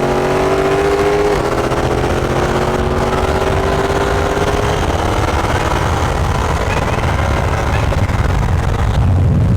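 Car engine at full throttle in a roll race, its pitch climbing steadily, with a brief dip at a gear change about a second and a half in. The engine note fades out about five seconds in, leaving a rumble of wind and road noise that grows louder near the end.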